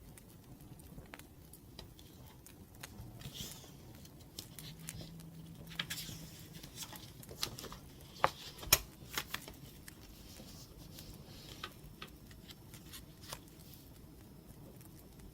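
Wood fire crackling with scattered small pops, mixed with light scratching of pen on paper; two sharp clicks a little past the middle are the loudest sounds.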